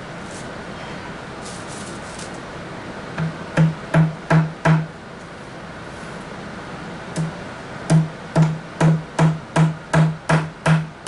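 Claw hammer driving small flat-headed nails through paper into the wooden top of an end table. A run of five blows comes about three seconds in, then after a pause a steadier run of about ten blows near the end, roughly two to three a second. Each blow carries a short low ring.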